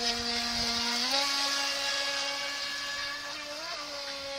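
FT009 RC speedboat's standard brushed electric motor whining steadily at speed over a steady hiss. Its pitch steps up slightly about a second in and blips briefly near the end.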